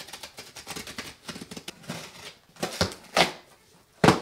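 Cardboard shipping box being opened by hand: a quick run of crackling and scraping, with a few louder strokes near the end, the loudest just before it ends.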